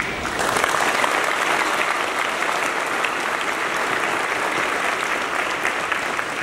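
An audience applauding, a dense, steady patter of many hands clapping that starts about half a second in.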